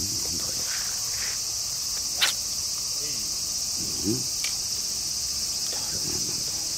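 Steady high-pitched insect chorus, with a single sharp click about two seconds in.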